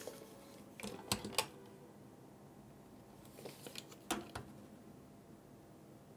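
Light clicks and taps of a steel tape measure being handled and held against a power supply's metal case, in two short clusters: about a second in and again around four seconds in.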